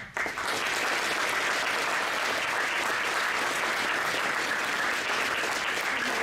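Audience of students applauding steadily in a school gym, starting suddenly at the end of a speech.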